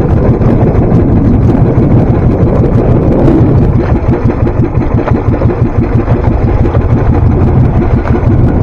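Small fishing boat's engine running steadily, with a fast, even low pulsing.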